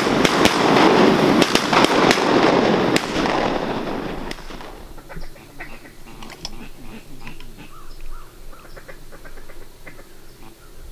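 A large flock of ducks beating their wings as they lift off: a dense rush of wingbeats with many sharp claps that fades out about four seconds in. After that come scattered faint duck calls.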